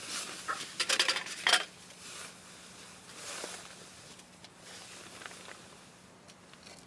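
Cookware being handled: a quick run of sharp metal clinks and knocks about a second in, then softer tapping and scraping.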